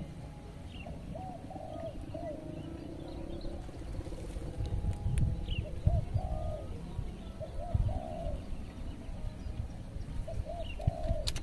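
A dove cooing, about six short repeated coo phrases, over a low wind rumble on the microphone that swells around the middle. A sharp click just at the end.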